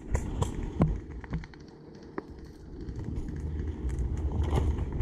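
A few sharp, separate clicks and cracks in the first half, then a low rumble that builds from about halfway through. The rumble is wind and movement on an action camera's microphone.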